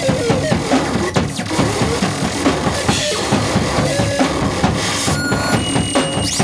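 Live improvised noise music: a drum kit played fast and densely, under harsh electronic noise with short whistling tones and pitch glides.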